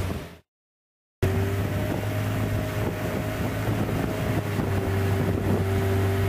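Motorboat engine running steadily with wind noise on the microphone. The sound drops out completely for under a second near the start, then the steady engine hum resumes.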